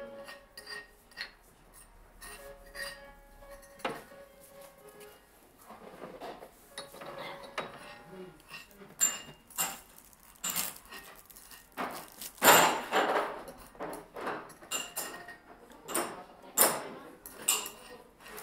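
Ceramic teacups and dishes clinking and being set down on a table, many short knocks, with the loudest clatter a little past halfway. Faint background music plays in the first few seconds.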